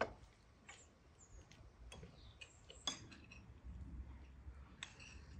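Faint, scattered clinks and taps of forks on plates as people eat at a table, the sharpest about three seconds in.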